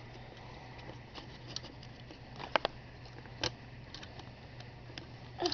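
A few small clicks and taps as a toy motor kit is handled: its battery is pulled out of the metal contact clips to be turned round, over a faint steady low hum.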